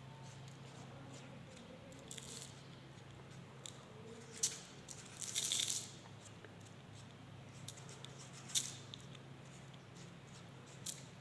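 Small handling noises from work at a bench: a few sharp clicks and a brief scraping rustle about five seconds in, over a steady low hum.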